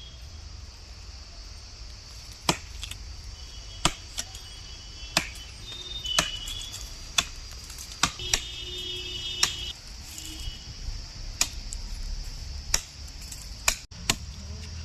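Sharp single strikes of a hand tool, about one a second and unevenly spaced, over a steady high hiss like insects.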